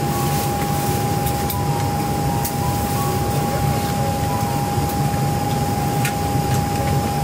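Steady cabin noise inside a Boeing 737-900ER, a low rumble of air-conditioning airflow with a constant high whine, and a few faint clicks.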